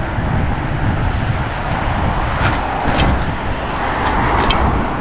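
Wind buffeting the microphone and road noise while riding a mountain bike, a steady rumbling rush with a few sharp clicks about halfway through and again near the end.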